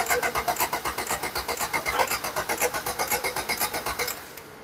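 Starter motor cranking the freshly overhauled Maruti Ciaz 1.3-litre diesel engine: a steady rhythmic beat of about five to six compression strokes a second. The cranking stops about four seconds in without the engine catching, as the rebuilt diesel is reluctant to start.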